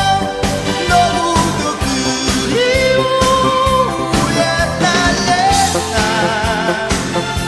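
A song playing: a melody in long held notes with vibrato over full instrumental backing with a steady beat.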